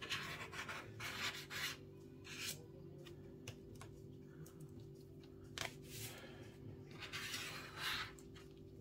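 Several short scraping and rubbing strokes as the old digitizer and its adhesive are worked off an iPad's frame, with a few sharp clicks in between.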